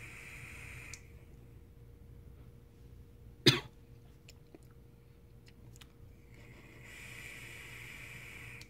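Drags on a Mutation X V3 rebuildable dripping atomizer firing a single coil at 40 watts: a steady airflow hiss for about the first second, and again over the last two seconds or so. Between the drags comes one loud, short cough about three and a half seconds in.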